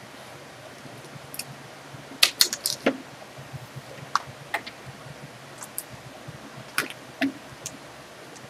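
Scattered light clicks and taps of a plastic ruler, mechanical pencil and drawing paper being handled and shifted on a desk, with a quick cluster of them about two seconds in.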